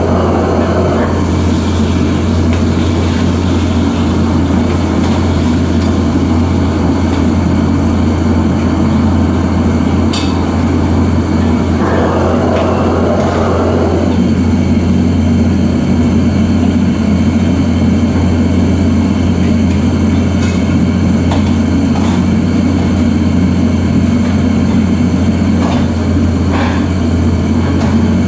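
The steady roar and low hum of a commercial wok station, its gas burner and overhead exhaust hood running continuously. A brief surge of noise comes about twelve seconds in, and a few sharp metallic clicks are scattered through the second half, as the wok and utensils are handled.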